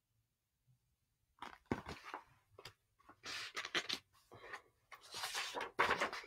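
Paper pages of a picture book being turned and handled: a run of short rustles and crinkles starting about a second and a half in.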